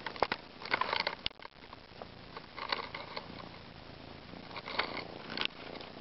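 A cat moving right up against the microphone: close rustling and scraping of fur in short bursts, about three times, with a few sharp clicks.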